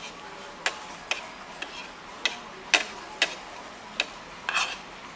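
Cutlery clinking against a plate or bowl while eating: about eight sharp, irregular taps, some with a short ring.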